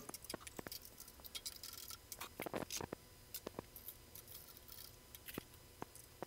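Faint, irregular metallic clicks and light taps of tooling being handled at a milling machine's spindle, as the edge finder and chuck are taken out to make way for an end mill.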